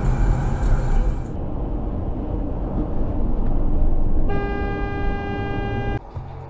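Car horn sounded in one long, steady blast of nearly two seconds over the low rumble of a moving car's road and engine noise, then cut off abruptly.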